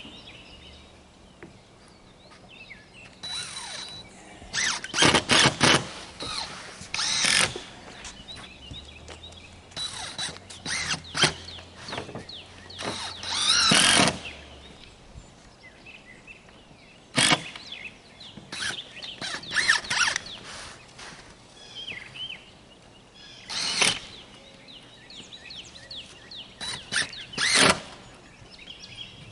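Intermittent building work on a roof: scattered sharp knocks and clusters of strikes, with a longer tool burst about halfway through. Birds chirp faintly in between.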